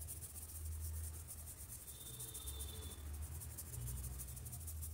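Faint background: a low hum that swells and fades, under a high, fast, evenly pulsing hiss.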